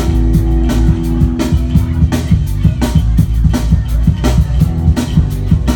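Live rock band playing an instrumental passage between vocal lines: guitar and bass holding sustained chords over drums keeping a steady beat.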